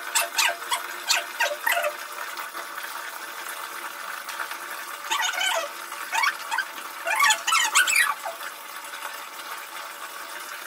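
Tap water pouring steadily into a plastic tub, with three bursts of high, squeaky whines from a wet shih tzu being lathered: near the start, about five seconds in, and around seven to eight seconds in.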